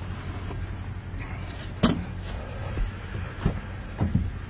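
Motor vehicle running with a steady low rumble, with a few sharp knocks about two seconds in and again near the end.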